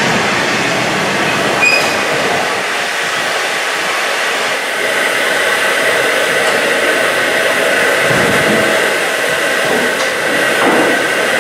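Steam escaping with a loud, steady hiss from a standing LNER Q6 0-8-0 steam locomotive.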